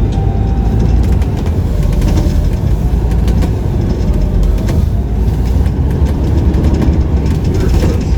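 A sightseeing bus riding through city streets: a steady low rumble of engine and road noise, with city traffic around it.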